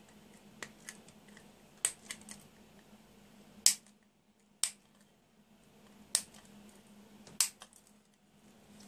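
Side cutters snipping off the excess leads of freshly soldered through-hole components on a circuit board: a series of sharp single snips, one every second or two.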